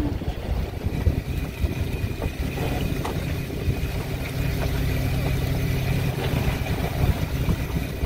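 Snow crab fishing boat's engine running steadily, a low hum with a rough noise of wind and sea.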